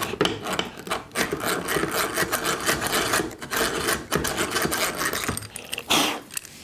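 Hand-cranked eggbeater drill with a countersink bit cutting a countersink into a wooden slat: a rapid rattling gear-and-cutting sound. It dips briefly about four seconds in and stops near the end.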